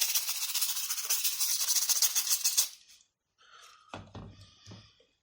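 Xbox controller part being scrubbed briskly with a brush: a dense hiss of quick rubbing strokes that stops about three seconds in. Quieter handling follows, with two soft knocks.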